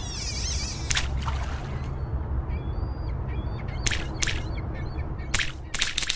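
Nature ambience with a steady low rumble and birds calling: short chirps around the middle, and a cluster of louder, harsher calls near the end.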